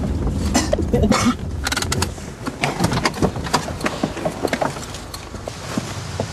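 A car's low rumble fading in the first second, then a run of rattling and knocking with two short bursts of hiss, as the car fills with white spray.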